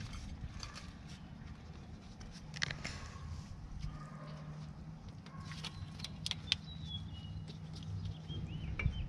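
Light metallic clicks and taps of brake pads and their spring clips being handled and seated by hand in a 2012 Toyota Camry's caliper bracket. A faint steady low hum comes in about halfway, and a bird chirps a few times near the end.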